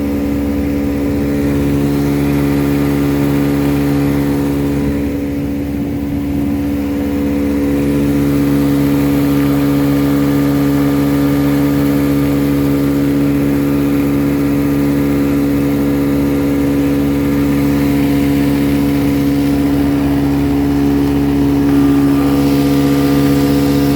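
1957 West Bend-built Elgin 7.5 hp two-cylinder two-stroke outboard motor running steadily at cruising throttle under load, pushing the boat along. It softens slightly for a couple of seconds about five seconds in.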